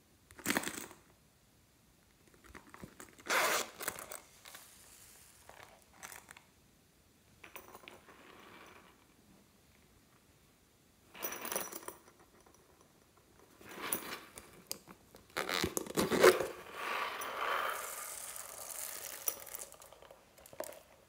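Slime topped with foam beads and sprinkles crunching and crackling as plastic toys are pressed into it and lifted away. It comes in about six separate bursts, and the longest and loudest runs for several seconds starting about two-thirds of the way in.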